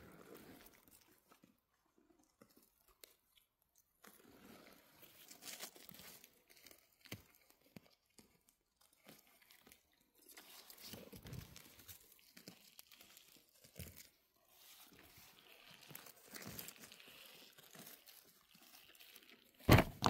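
Faint, scattered rustling, crunching and snapping of forest-floor vegetation and twigs, from someone walking and picking mushrooms, with short quiet gaps between the sounds.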